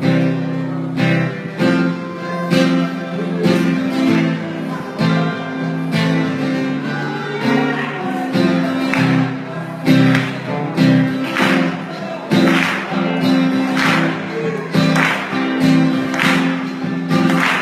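Live worship band music led by strummed acoustic guitar over sustained chords, with accented strokes about once a second in the second half, as the intro to a worship song.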